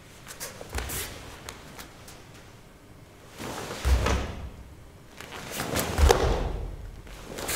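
A karate gi swishing sharply with each technique, and bare feet thudding on a foam dojo mat as the stance is set, three times, the last two the loudest.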